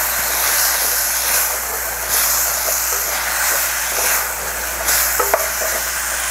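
Browned chicken thighs sizzling and steaming in a hot stainless-steel pan just deglazed with a couple of spoonfuls of liquid, stirred with a wooden spatula. There is a steady hiss, with a few light knocks of the spatula against the pan about five seconds in.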